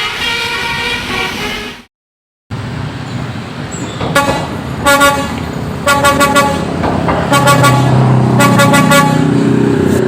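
Basuri 'telolet' multi-tone bus horn playing a tune of changing notes, which stops abruptly; after a short break it sounds again in several short blasts over a bus engine's rumble, which grows louder near the end.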